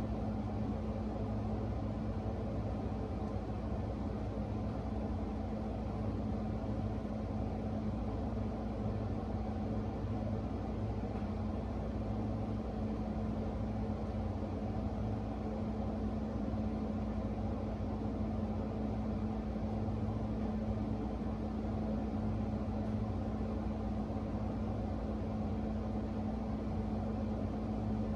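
A steady, unchanging hum: one constant low tone over a low rumble, like a running motor or appliance.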